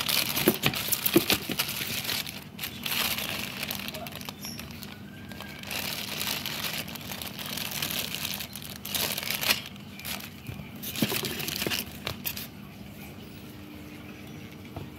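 Plastic packaging bags crinkling and rustling in irregular bursts as hands rummage through a box of bagged cables and a styrofoam insert, stopping a couple of seconds before the end.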